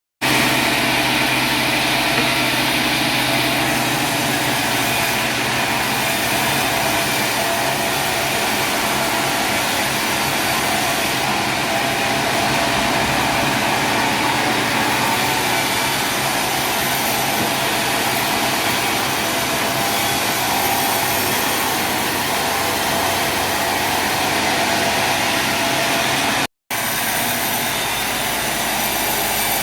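Sawmill machinery running steadily: a loud, even mechanical whine and hiss with a constant hum, broken by a brief gap near the end.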